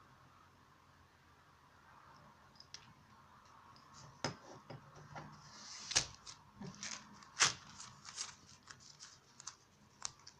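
Handling a small precision screwdriver set in its case: scattered clicks and taps of the metal handle and bits, with light rustling, starting a couple of seconds in and loudest in the middle as the case is folded shut.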